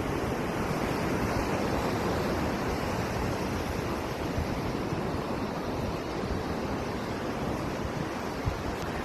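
Sea surf washing on the shore as a steady, even rush of water, with a low rumble of wind on the microphone.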